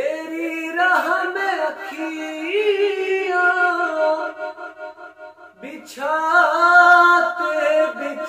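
A man singing a naat unaccompanied: long, drawn-out, wavering held notes with no clear words, breaking briefly and starting again about five and a half seconds in.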